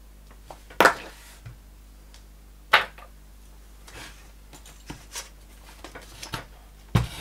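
Handling knocks and clicks on a workbench as the metal chassis of a Tandberg Sølvsuper 11 radio amplifier and its parts are picked up and moved: two sharp knocks about one and three seconds in, lighter clicks after, and another knock near the end as the chassis is set down.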